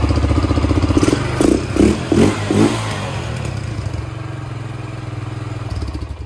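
1994 ATV engine running at idle, blipped up quickly four times about a second in, then idling again and shut off, cutting out abruptly at the very end.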